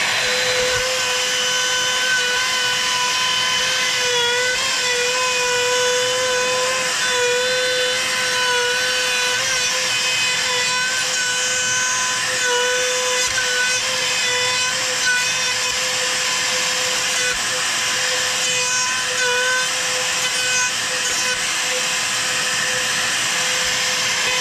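Makita compact trim router running at full speed while routing a bowtie (Dutchman) inlay recess along a template. It gives a steady high whine whose pitch dips slightly now and then as the bit takes load in the wood.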